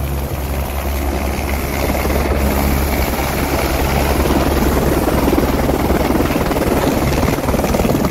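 Helicopter setting down close by: a steady, loud rush of turbine and rotor noise over a low, even rotor beat, swelling slightly around the middle.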